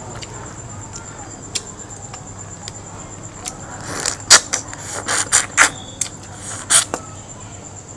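Close-miked eating of a cooked shrimp: a few small clicks of shell being peeled, then, from about four seconds in, a run of loud wet smacks, sucks and crunches as the shrimp is bitten and chewed.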